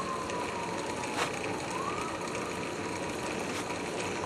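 Drill press switched on with a click, its motor running steadily at about 600 RPM as a steel dough hook turns through dry flour in a rotating propane-tank bowl.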